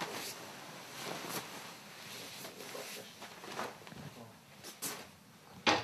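Rustling of bedding and clothing as a person gets up out of bed, with a few short knocks and scuffs; the sharpest comes near the end.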